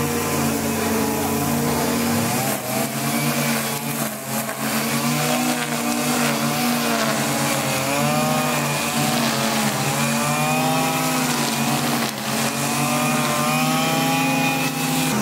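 Petrol brush cutter running, its engine pitch wavering up and down as the cutting head swings through the grass.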